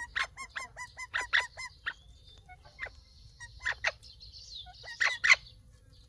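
Parakeets calling: a fast run of short clipped notes over the first couple of seconds, then two pairs of louder harsh squawks, the loudest about five seconds in.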